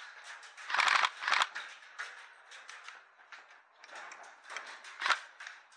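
Irregular sharp clicks and snaps of varying loudness, typical of airsoft guns firing and BBs striking cover, the loudest about a second in and just after five seconds.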